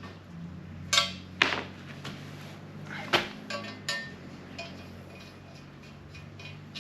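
A few irregular metallic clinks and taps of a wrench working small steel studs into an aluminium intercooler, the loudest about one and three seconds in, each with a short ring.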